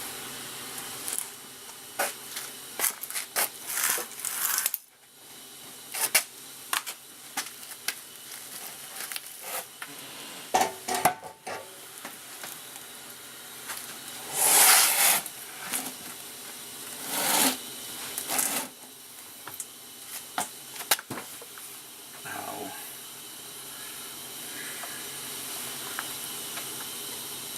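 Metal tools and parts clinking and clattering on a workbench, with many short sharp clicks and knocks over a faint steady hiss. Two louder hissing bursts of about a second each come about halfway through.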